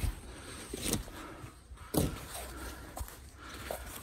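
Footsteps on grass while the camera is carried and handled: a few soft thumps about a second apart over a low rumble of handling noise.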